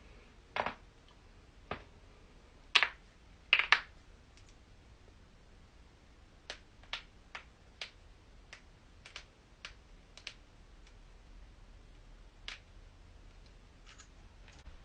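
Joints cracking: a few loud, sharp pops in the first four seconds, two of them close together, then a run of smaller clicks spaced roughly half a second apart.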